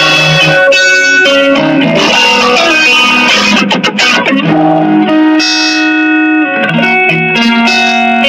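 Sunburst Stratocaster-style electric guitar played solo through an amplifier: a run of picked notes and chords, with one chord left ringing for about a second a little past the middle. It is being played to show how sensitively the guitar responds to picking strength.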